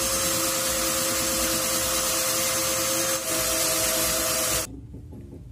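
Cordless drill motor running steadily at speed, its pitch stepping up about three seconds in, then stopping abruptly near the end.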